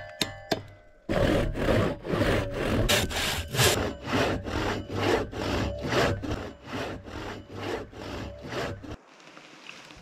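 Hand saw cutting through a fallen tree trunk in quick, even back-and-forth strokes, about three a second, after a few sharp clicks as the saw is set to the wood. The sawing stops suddenly near the end.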